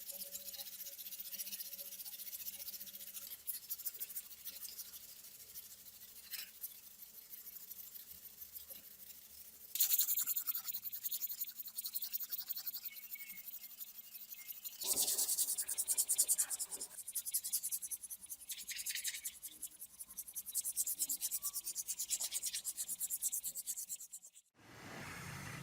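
Fast back-and-forth hand scrubbing on a rusty metal part, in spells of rapid scraping strokes with short pauses between them. Just before the end it cuts off and gives way to a steady hiss.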